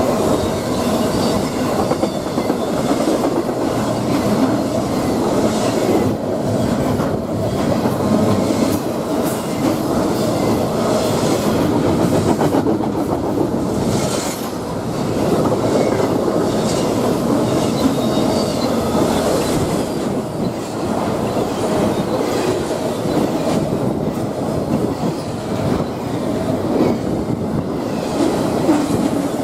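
Train cars rolling past, their steel wheels clacking over rail joints in a steady, continuous run.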